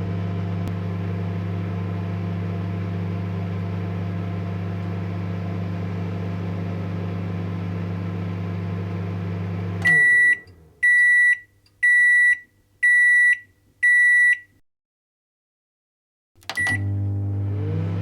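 Microwave oven running with a steady low hum that winds down about ten seconds in, followed by five high beeps about a second apart signalling the end of the cycle. After a short silence a single beep sounds and the hum starts up again.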